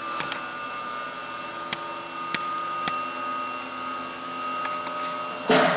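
Steady motor whine from a cricket bowling machine's spinning wheels, with a few faint clicks, then one loud sharp whack near the end as a ball is fired or struck.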